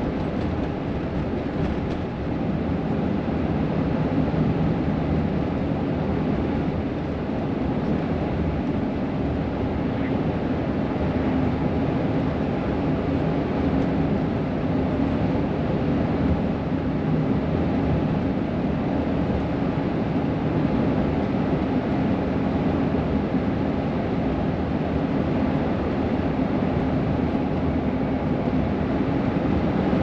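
Steady road noise of a car driving: tyre and engine drone with a low hum, unchanging throughout.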